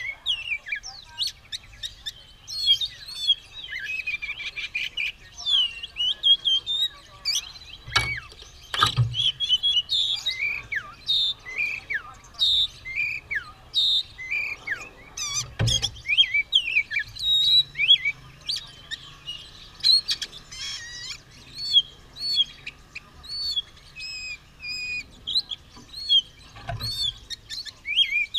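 Oriental magpie-robin (kacer) singing nonstop, a quick, varied run of high chirps and whistled slurs with hardly a pause. A few short knocks break in, four times.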